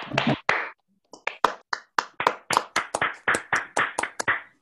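Hands clapping in quick succession, about five claps a second, with a short pause about a second in and the sound cutting off abruptly at the end: applause for the speaker heard over a video call.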